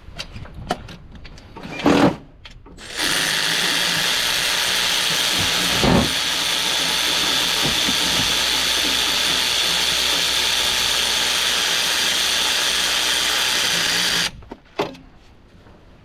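A cordless power tool runs steadily for about eleven seconds, spinning nuts down onto studs. It is preceded by a knock, and there is another knock partway through.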